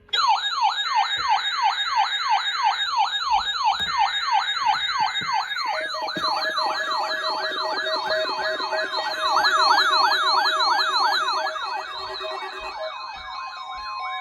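Weather alert radio receivers sounding their warbling siren alarms together, set off by the NOAA Weather Radio weekly test signal. Several fast up-and-down warbles overlap, about three sweeps a second, with steady tones layered over them and a steady tone coming in near the end.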